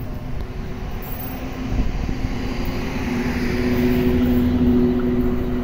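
CC 206 diesel-electric locomotive approaching with a passenger train, its engine drone and a few steady low tones growing louder, strongest over the last couple of seconds.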